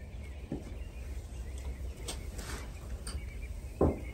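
Goats and donkeys feeding at hay on the ground: a few soft rustles over a steady low rumble, and a short thump just before the end.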